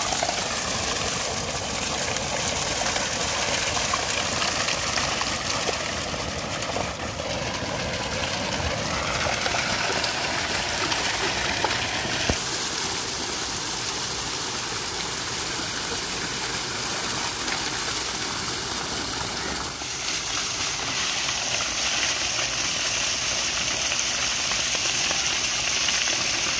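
Heavy, steady gush of water pouring from a pipe and splashing onto a buffalo's back and into a shallow channel of water.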